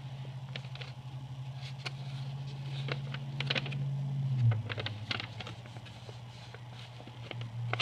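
A folded sheet of printer paper being unfolded and handled: many short, crisp paper crackles and rustles. Under it runs a steady low hum that drops slightly in pitch about halfway through.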